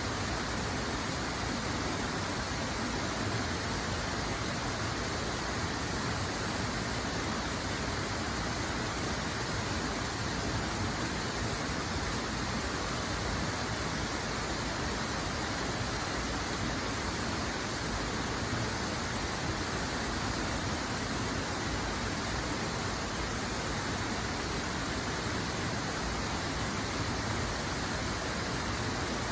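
Steady rushing of running water, an even hiss with no breaks or changes.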